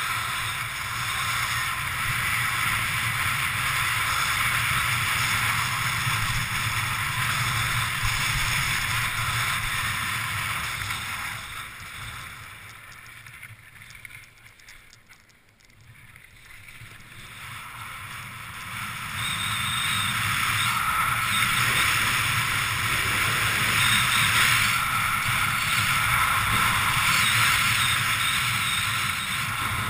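Wind rushing over the microphone of a camera worn by a snowkiter skiing across snow. It fades away about halfway through as the rider slows, then builds back up.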